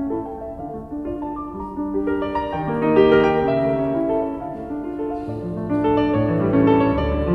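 Piano music with a bass line, an instrumental passage with no singing, played back through Fluance Ai60 bookshelf speakers in a sound test. It gets fuller and louder about two seconds in.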